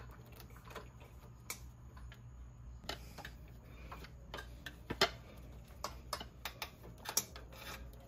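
Scattered light clicks and taps as a motorcycle throttle cable is handled and bent into place against the bike's metal frame, irregularly spaced, the sharpest about five seconds in, over a low steady hum.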